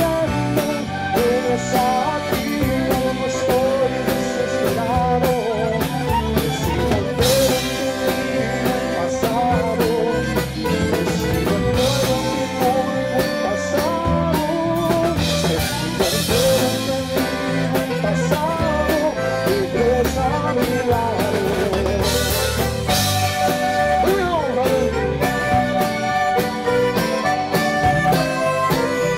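Tejano band playing live: a drum kit keeping a steady beat under bass and guitar, with an accordion carrying the melody.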